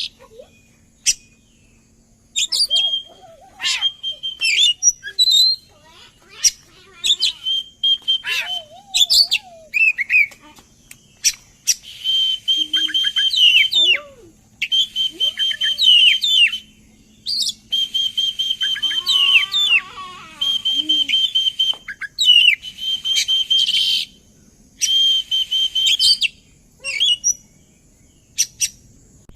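Oriental magpie-robin (kacer) singing a varied song of short whistles, chirps and slurred notes. From about twelve seconds in it switches to repeated rattling phrases about two seconds long, each with a steady high note through it. This is a bait song, used to provoke a kacer into singing back.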